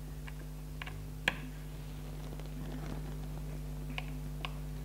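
Small scattered clicks and taps of a precision screwdriver working the screws on an iPad 2's screen frame, the sharpest about a second in and two more near the end, over a steady low hum.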